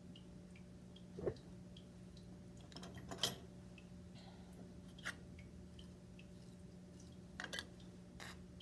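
A handful of scattered soft taps and clicks from hands and clay tools handling wet clay on a wooden workbench, over a steady low hum.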